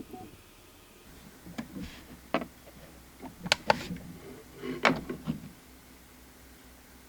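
Small clicks and knocks from handling nail-art tools and gel pots on a work surface, a handful of sharp taps scattered through the first five seconds or so.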